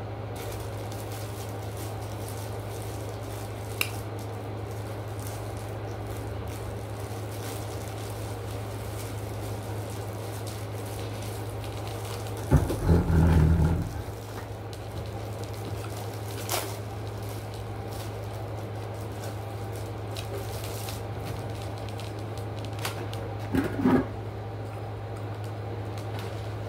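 Quiet eating and food-handling noises over a steady low hum: a few sharp clicks and rustles of plastic food packaging and utensils. About halfway through, a hand reaching to the camera makes a loud bump and rub lasting a second or two.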